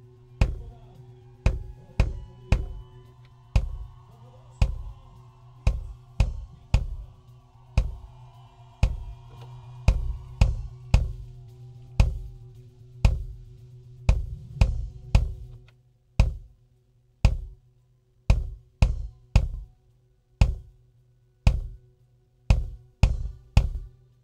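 A kick drum played in a steady pattern, picked up by its close mic and heard soloed, with snare and cymbal bleed and a low ring between the hits. The EQ and compressor are switched in partway through. About two-thirds of the way in, the noise gate starts closing between hits and the bleed drops out, so each kick stands alone.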